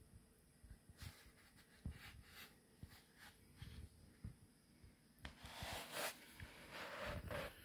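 Quiet rustling and small knocks from a foot and a hand-held phone moving. The rustling grows louder for about two seconds from about five seconds in.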